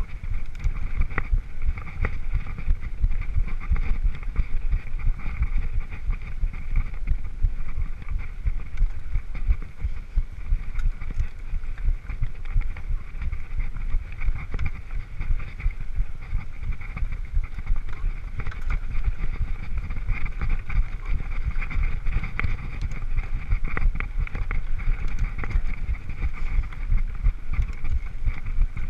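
Mountain bike riding over a rough grass-and-dirt track, a steady rumble with scattered small knocks and rattles from the bike, under wind buffeting the microphone.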